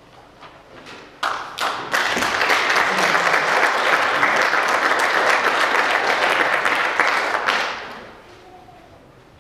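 Audience applauding: a few first claps about a second in, swelling into full applause that dies away near the end.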